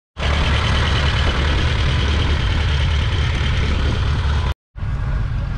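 The 1.4-litre two-cylinder MWM diesel engine of a 1956 Renault Junior tractor running steadily, with a strong low rumble. The sound breaks off abruptly about four and a half seconds in and comes back a moment later quieter and thinner, with less bass.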